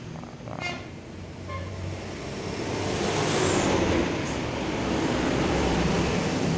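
Motor vehicle engine rumble, like passing road traffic, getting louder about three seconds in and holding steady.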